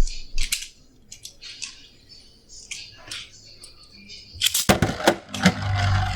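A few sharp plastic clicks, then, about four and a half seconds in, a sudden loud run of rapid clattering with a low hum under it: Beyblade spinning tops whirring and clashing in a plastic stadium.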